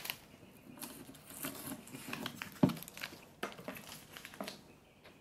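Shiny metallic gift ribbon being pulled and slid off a wrapped box, crinkling and rustling against the wrapping paper, with a single thump about two and a half seconds in.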